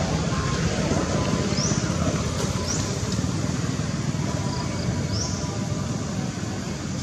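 Outdoor ambience: a steady low rumble and hiss, with three short rising bird chirps.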